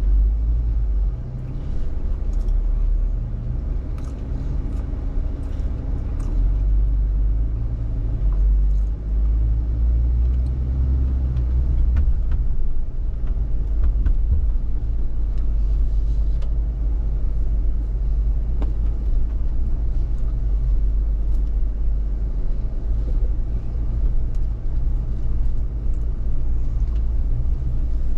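A 4x4's engine running at low speed as the vehicle crawls along a rough trail. Scattered faint clicks and knocks sit over the steady low engine sound.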